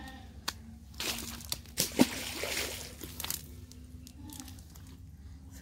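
Wet cast net rustling and crinkling as a large fish is handled in it, with a few sharp slaps and knocks in the middle, the loudest about two seconds in.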